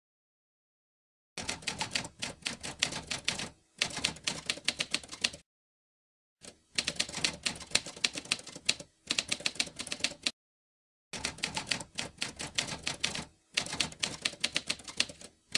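Typewriter keys clacking in quick runs of keystrokes, six runs of a second or two each with short pauses between, as a typing sound effect for on-screen text.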